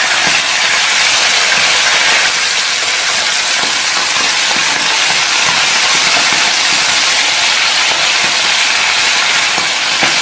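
Small salted fish (ikan asin) deep-frying in hot oil in a pan: a loud, steady sizzle.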